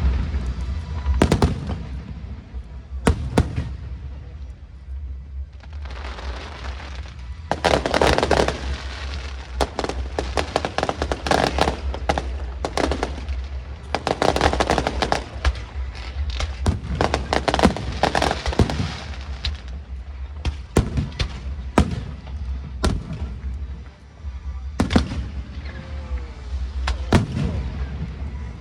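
Aerial fireworks going off in quick succession: many sharp bangs, with several stretches of dense crackling, as in a festival fireworks show set to music.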